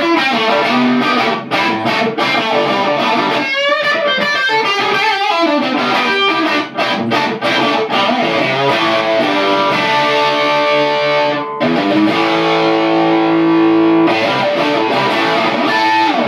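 Electric guitar, a Smitty Strat-style guitar, played through a Kool & Elfring Straight 8 amplifier: quick runs of notes with sliding pitches, then longer held chords from about two-thirds of the way in, stopping at the end.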